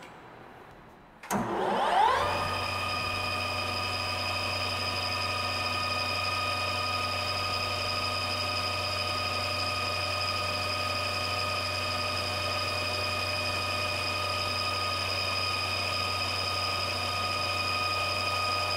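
Wasino LR-55A metal lathe starting with a click about a second in, its spindle whine rising as it spins up, then running steadily with an even gear whine and low motor hum as a drill bores into the spinning steel bar.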